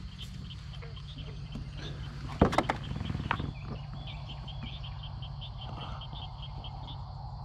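A hooked largemouth bass splashing at the side of a kayak in a short burst about two and a half seconds in. Under it runs a steady low hum, and from the middle on there is a rhythmic high chirping call, about four to five chirps a second.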